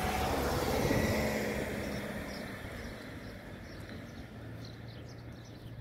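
A car, an SUV, passing close by: its engine and tyre noise swells to a peak about a second in, then fades away.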